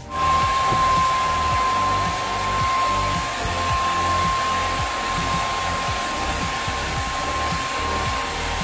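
Handheld hair dryer switched on and running steadily, a loud even rush of air with a steady high whine, used to dry water sprayed under vinyl wrap film.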